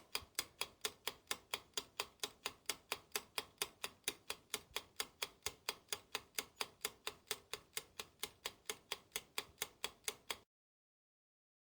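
Ticking clock sound effect: evenly spaced sharp ticks, about four a second, that stop abruptly about ten and a half seconds in.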